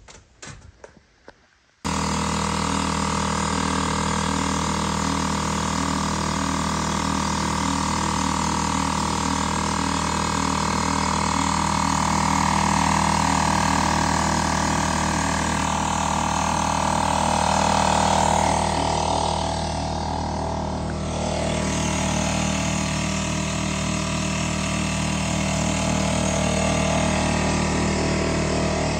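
A motor engine running steadily. It cuts in abruptly about two seconds in.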